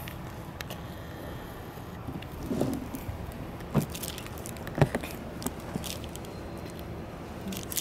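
Low steady outdoor hum with a few scattered soft knocks and sharp clicks, the sharpest about five seconds in.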